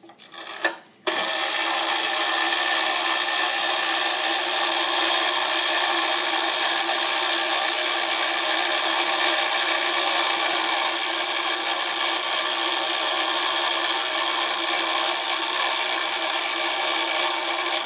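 Gamewell fire alarm telegraph box's spring-driven clockwork movement running after the box is pulled: a few clicks, then a loud, steady mechanical whirr that starts abruptly about a second in and cuts off suddenly at the end, as the movement turns the code wheel that sends the box number.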